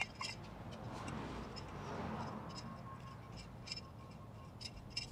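Small tubing cutter being turned around a copper stub on a hermetic compressor, its cutting wheel making a series of faint, light clicks a few times a second as it scores the tube.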